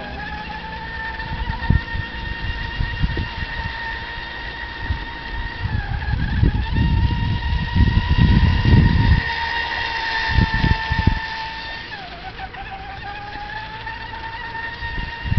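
Radio-controlled speedboat's motor running at speed as a steady high whine with overtones, its pitch dipping briefly about six seconds in and again near twelve seconds, as the throttle eases in turns. Low gusts of wind buffet the microphone, loudest from about six to nine seconds in.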